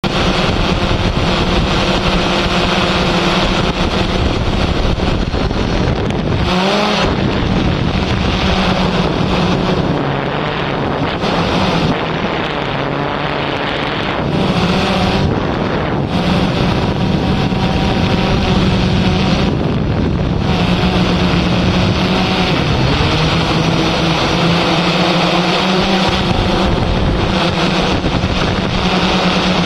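Multirotor drone's motors and propellers whirring in flight with a steady, loud hum over a rush of air noise. The hum's pitch shifts up and down slightly several times as the drone manoeuvres.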